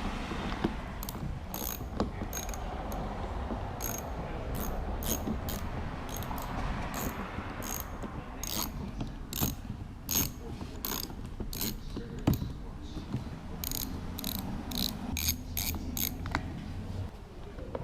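Ratchet wrench with a 9/32-inch socket clicking in a long run of short back-strokes, about two or three clicks a second, backing out trim fasteners on a car door. The clicking stops shortly before the end.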